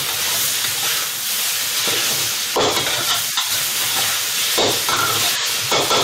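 Char kway teow noodles and bean sprouts sizzling in a hot wok while a metal wok spatula stirs and tosses them, with a few sharper scrapes of the spatula against the wok in the second half.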